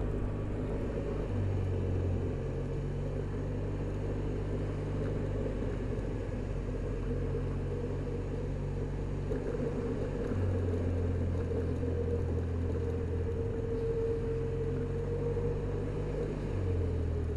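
Touring scooter's engine running at low town speed, a steady low hum that shifts up and down in pitch a few times as the throttle changes, over a haze of road and wind noise.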